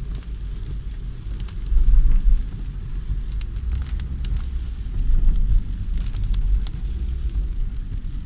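Car driving through heavy rain: a steady low road and engine rumble with scattered sharp taps of rain striking the car. The rumble swells louder about two seconds in and again about five seconds in.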